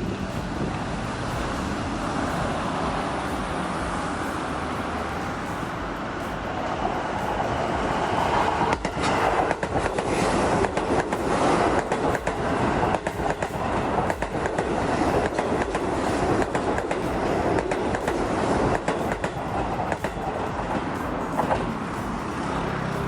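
Keio Line electric train passing on the track, its wheels clicking over the rail joints. The rumble swells about eight seconds in and eases near the end.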